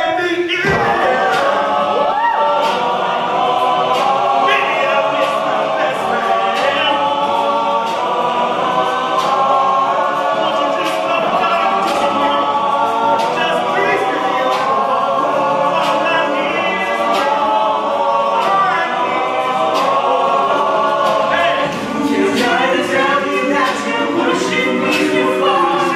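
Men's a cappella group singing in close harmony, with a steady beat of sharp clicks running through the song.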